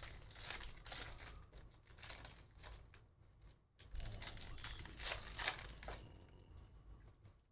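Foil wrappers of trading-card packs crinkling and tearing as the packs are ripped open by hand and the cards slid out, in short irregular rustles with a brief lull about three seconds in.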